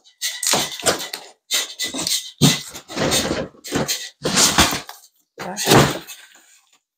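Cardboard box and its packing being handled as a flat-packed dining chair is unpacked: a string of irregular rustling, scraping noises.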